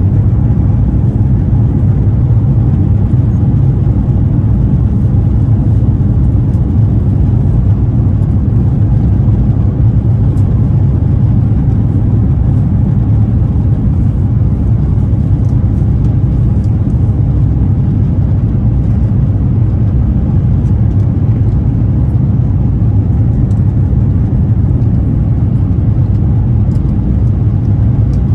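Steady, loud low rumble inside the cabin of an Airbus A350-1000 climbing out after takeoff: its Rolls-Royce Trent XWB-97 engines at climb thrust mixed with airflow noise, unchanging throughout.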